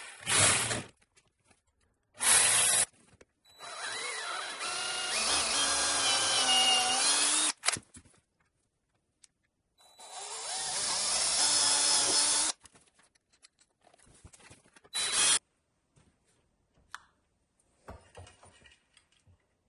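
Cordless drill running under load in several bursts: two short ones near the start, a run of about four seconds whose pitch wavers as it labours, another of about two and a half seconds, and a brief final burst, then only faint clicks and handling.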